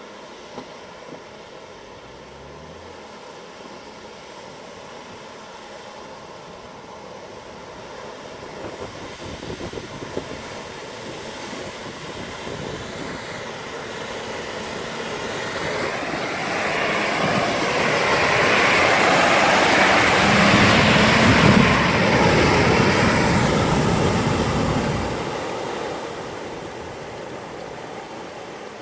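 Off-road 4x4 driving through, its engine and tyres growing louder to a peak about twenty seconds in, then fading quickly as it moves away.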